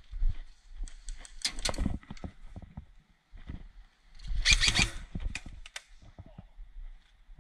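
Incoming airsoft fire: a quick run of sharp cracks and clicks about four and a half seconds in, the loudest part, with a shorter run of clicks around a second and a half in and scattered knocks between.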